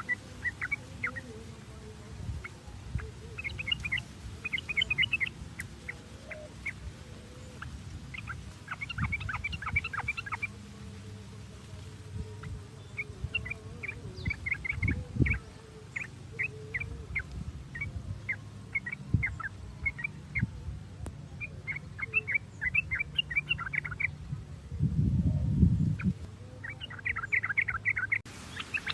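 Yellow-vented bulbul (trucukan) song: repeated clusters of short, quick chirping notes, phrase after phrase. A brief low rumble rises under the song near the end.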